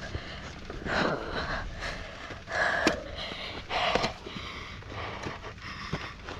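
Hard breathing of a person pushing a mountain bike up a steep dirt climb: several loud breaths about a second apart. Short scuffs and clicks from feet and the pushed bike come between them.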